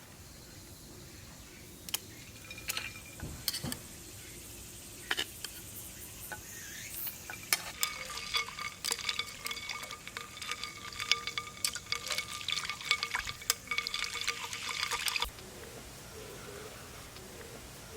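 Camp cooking sounds: a few scattered clinks, then about seven seconds of dense crackling and liquid stirring over a steady whine, which stops suddenly.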